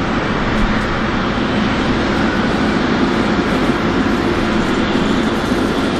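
Boeing 777 jet engines running with a steady, loud rushing noise over a low hum, heard from outside the airliner on the runway.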